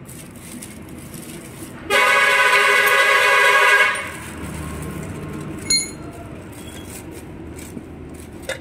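A loud horn blares steadily for about two seconds, starting about two seconds in, over a steady low rumble. A little later a single light metallic clink rings out.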